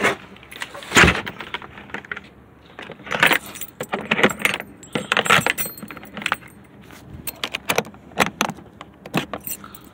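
Metal clicking and rattling at a car trunk lid's latch as it is handled, with a loud knock about a second in and a run of quick rattles from about three seconds on.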